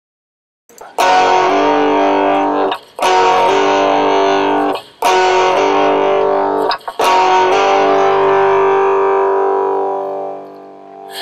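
Guitar playing the opening of a blues song: four chords struck about two seconds apart, the last one left ringing and fading away.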